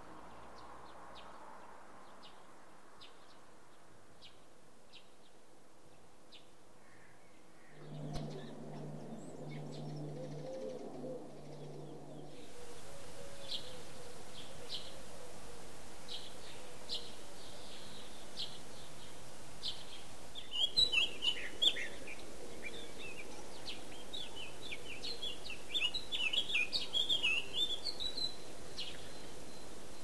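Small songbirds calling: a run of short, evenly spaced high chirps, then bursts of fast twittering song, loudest about two-thirds of the way through and again near the end. A low hum is heard for a few seconds about a quarter of the way in.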